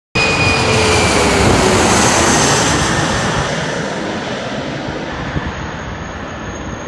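Twin-engine jet with rear-mounted engines passing low overhead on its landing approach. The engine noise cuts in suddenly, with a whine that falls in pitch as it goes over, then fades slowly as the jet moves away.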